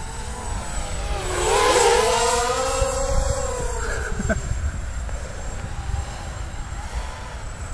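Small hexacopter FPV drone with six 1806 brushless motors whining as it flies past. The pitch swells and bends with the throttle, is loudest about two seconds in, then drops and fades as it moves away.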